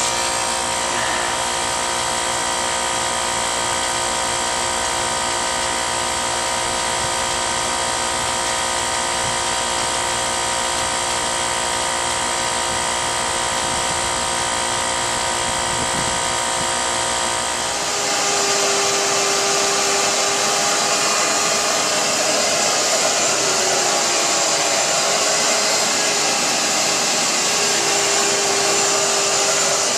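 Steady machine whirring with a fixed pitch. About two-thirds of the way through it changes abruptly to a brighter, airier hiss with a single steady tone left.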